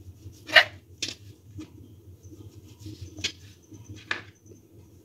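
Kitchen knife cutting the crusts off slices of soft white bread on a plastic cutting board: a handful of short, sudden crunching cuts and blade taps, about four in all, over a faint low hum.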